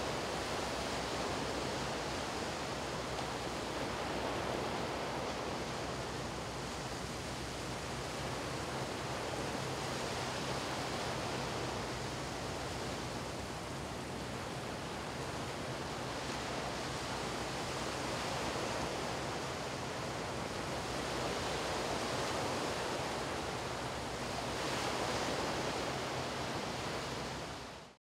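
Small waves washing onto a shallow sandy beach: a steady surf hiss that rises and falls gently every few seconds, fading out at the very end.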